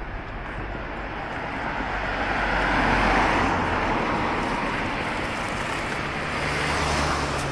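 Road traffic passing on a city street. One vehicle's tyre and engine noise swells to a peak about three seconds in and fades, and a low, steady engine hum from another vehicle comes in near the end.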